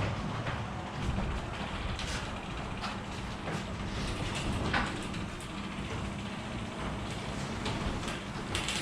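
Wayne Dalton sectional garage door travelling on its tracks under the garage door opener: a steady motor hum with rolling, rattling rollers. The door's Torquemaster Plus springs are freshly replaced, and it is running normally again.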